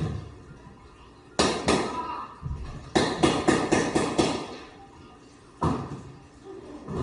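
Blank gunfire from firearms on a film set: two shots about a second and a half in, a rapid burst of about seven shots a second later, then a single shot near the end, each ringing on briefly.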